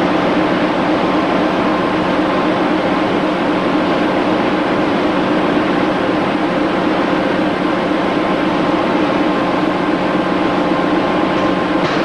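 Reel-fed printing press running, a loud, steady mechanical noise with a constant hum.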